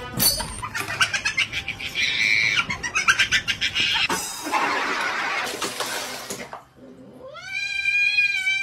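Rough, noisy animal sounds for the first six seconds or so. Then, about seven seconds in, a domestic cat starts a long, drawn-out yowl that rises in pitch and then holds steady.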